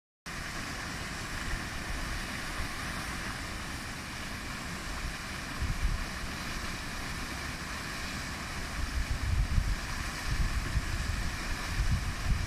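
Waterfall: a steady rush of falling water, with wind buffeting the microphone in gusts about six seconds in and again from about nine seconds on.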